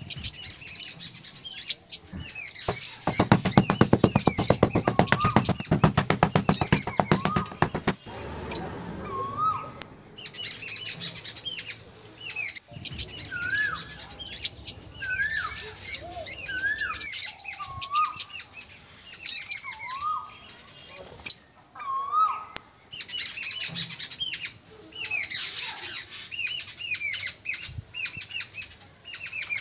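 Many birds chirping and singing together, with one call repeating as a short rising-then-falling whistle about every second and a half. From about 3 to 8 seconds in, a loud, fast rattling buzz sounds over them.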